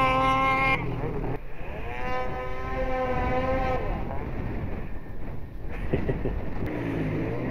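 Two-stroke snowmobile engine revving in bursts: a high held engine note that cuts off about a second in, then another rev that climbs, holds for a couple of seconds and falls away, with a lower rough engine rumble between.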